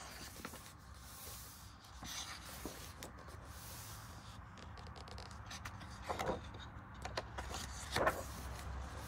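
Faint rustling and scraping of paper as colouring book pages are handled and turned, with two brief louder rustles in the second half.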